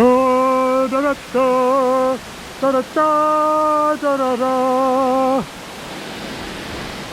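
A person's voice holding a few long notes of a tune, in five phrases with a slight wobble, stopping about five and a half seconds in, over the steady rush of Toccoa Falls.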